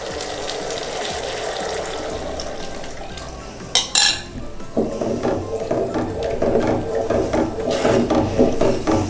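Red curry paste sizzling in a frying pan, with a brief loud hiss about four seconds in as coconut milk goes into the hot pan. After that a spatula stirs the mixture in the pan with rapid, repeated scraping strokes.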